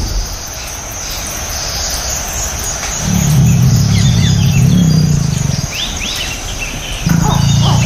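Birds chirping over outdoor ambience, with low, drawn-out tiger growls coming in about three seconds in and again, louder, near the end.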